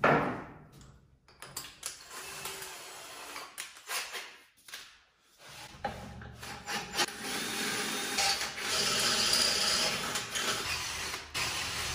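Cordless drill with a 12 mm bit reaming out tapered bolt holes in a small engine's metal mounting base. It runs in short stop-start bursts at first, then grinds steadily through the second half.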